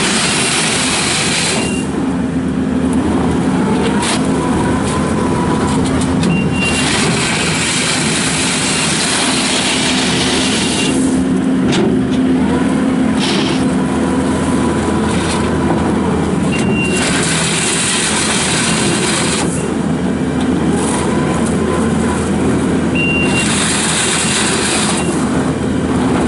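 Kubota SVL75-2 rubber-track skid steer loader working: its diesel engine runs steadily throughout. Stretches of loud hiss and clatter come and go every few seconds as the machine moves, and a short high beep sounds four times.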